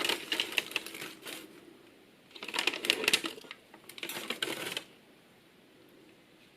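Clicking and rustling of the model car's packaging being handled, in three short bouts.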